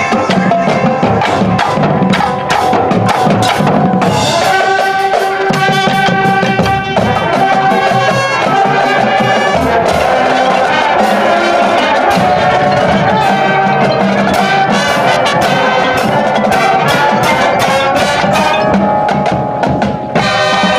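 High school marching band playing its field show: drums strike steadily, and brass comes in with sustained chords about four seconds in.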